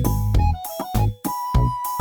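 Upbeat background music with a steady beat and a keyboard melody.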